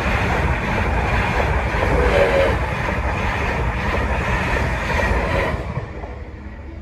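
Train passing close by, its wheels clattering over the rails with a steady rush of noise that drops away about five and a half seconds in as the train clears.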